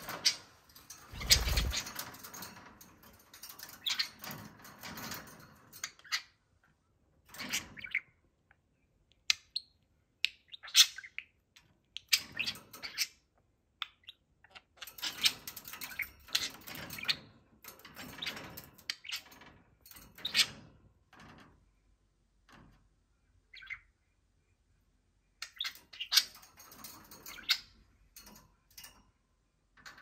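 Budgerigars chirping and warbling in short bursts with quiet gaps between, and a flurry of wing flapping about a second in.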